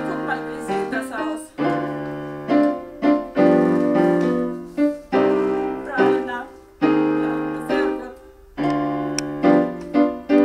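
Portable electronic keyboard played with a piano voice: a slow run of chords, each struck and then fading before the next.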